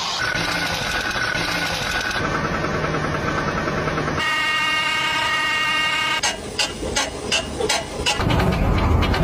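Short recordings of abnormal car noises cut one after another. First comes a running engine with a faint high tone. At about four seconds a steady pitched whine starts. From about six seconds there is a rapid knocking, about four knocks a second.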